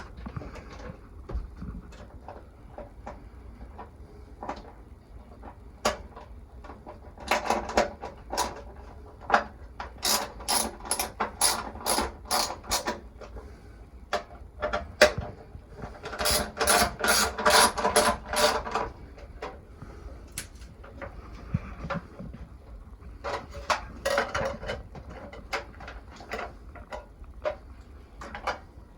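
A ratcheting hand tool clicking in several short runs of rapid clicks, the way a ratchet clicks when it is swung back and forth to turn a fitting or fastener.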